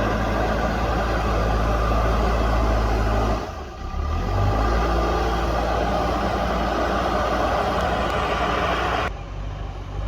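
Diesel engine of a JCB backhoe loader running hard while it pushes and levels soil. The sound drops away briefly about a third of the way in, picks up again with a short rise in engine pitch, and drops again near the end.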